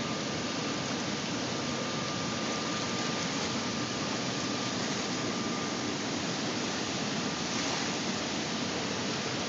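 Steady rush of fast-flowing river current, an even unbroken hiss of moving water.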